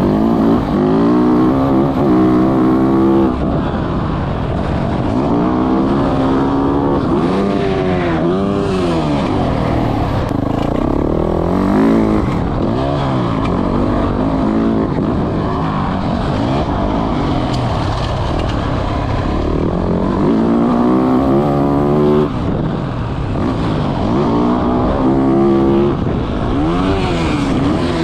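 Motocross dirt bike engine ridden hard around a jump track, its pitch climbing and dropping again and again as the throttle is opened and chopped between jumps.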